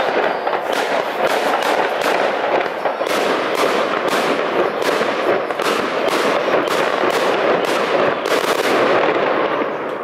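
Fireworks display going off: many bangs in quick succession, several a second, dense and unbroken, easing off just before the end.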